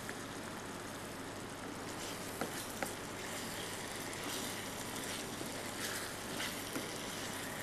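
Faint steady hiss of room tone, with two light clicks about a third of the way in.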